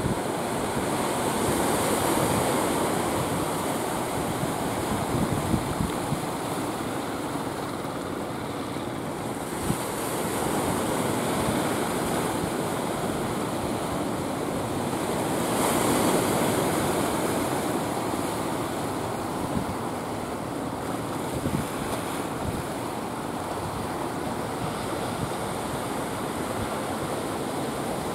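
Surf and waves washing steadily, with wind buffeting the microphone; the wash swells louder twice, about two seconds in and again midway.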